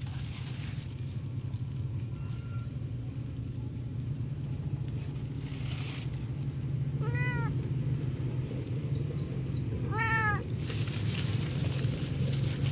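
Orange tabby cat meowing twice, two short calls about three seconds apart, each rising and falling in pitch, over a steady low hum.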